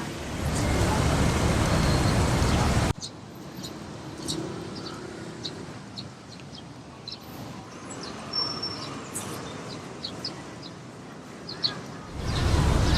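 Steady road-traffic rumble that cuts off suddenly about three seconds in. It gives way to small birds chirping over a quiet background, and the traffic rumble returns near the end.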